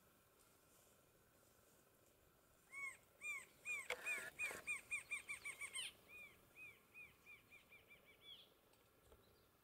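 Rufous-winged antshrike singing: a series of nasal, evenly pitched notes that starts slowly about three seconds in and speeds up, followed by a fainter, similar accelerating series.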